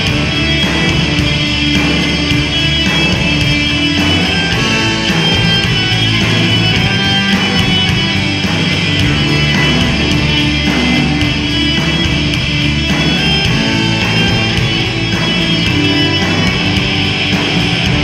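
Live rock band playing loud: electric guitars and drums with a steady beat.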